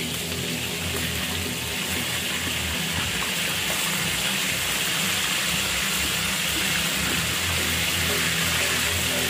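Chicken pieces frying in oil, a steady sizzle that grows slightly louder, over background music.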